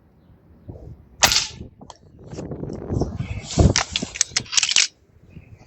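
A Gamo Whisper .22 break-barrel air rifle fires once with a sharp crack about a second in. A couple of seconds of clattering and clicks follow.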